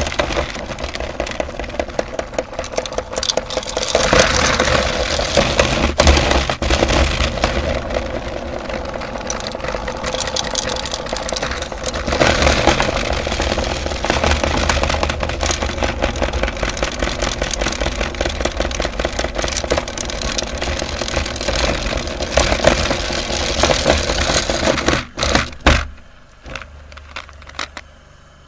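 Electric meat grinder running and crunching candy: a steady motor hum under a dense stream of cracks, rattles and scraping. The grinding stops abruptly near the end.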